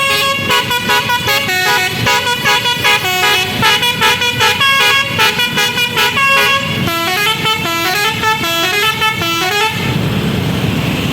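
Indonesian bus's telolet basuri musical horn playing a long, fast tune of short notes that jump up and down in pitch. It stops about ten seconds in, leaving a low rumbling noise.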